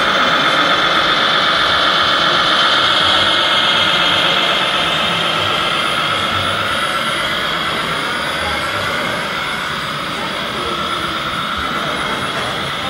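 Continuous high-pitched whine of a radio-controlled scale MAN tipper truck's electric drive and gearbox as it drives, its pitch wavering slowly with speed.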